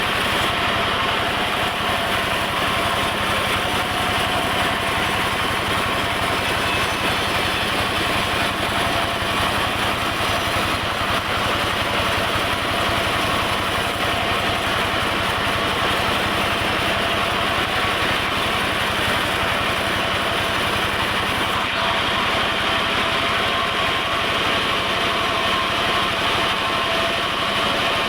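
Sawmill machinery running steadily: an engine hum with a dense, even noise over it and no breaks.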